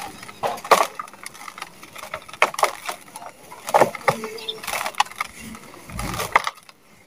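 Blocks of dry sand-cement crushed and crumbled by hand in a plastic tub: a run of irregular gritty crunches as chunks break apart and grains pour down.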